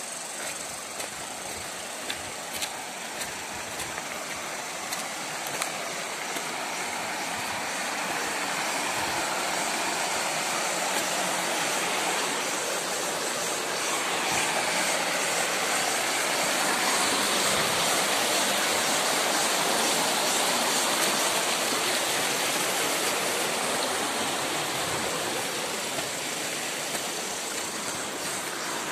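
Rushing water of a rocky mountain stream, a steady hiss that grows louder through the middle and eases off toward the end.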